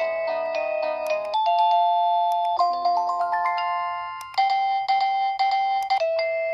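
Plug-in wireless digital doorbell chime playing electronic melodies. One tune fades out about four seconds in and another starts abruptly.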